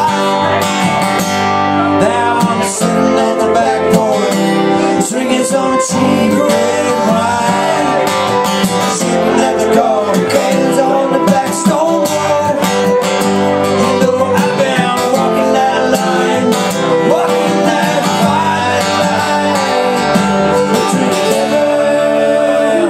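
Live acoustic string band playing an instrumental passage: strummed acoustic guitars with a bowed fiddle carrying the melody.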